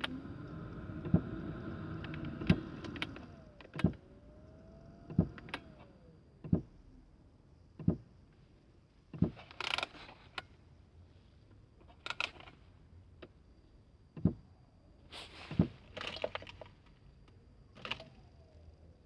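Knocking from under a car's dashboard: a sharp knock repeating about every second and a half, with a few louder rattling knocks among them.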